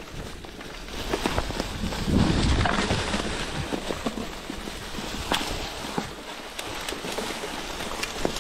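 A mountain bike moving over rough, overgrown ground: irregular clicks and knocks with rustling, and a gust of wind noise on the microphone about two seconds in.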